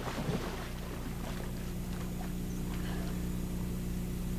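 A steady low hum with a faint background hiss; no distinct event stands out.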